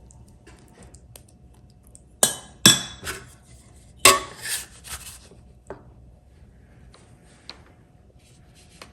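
A metal spoon clinking against a dish several times while scooping meat filling. The sharpest clinks come about two seconds in and again about four seconds in, followed by a few lighter taps.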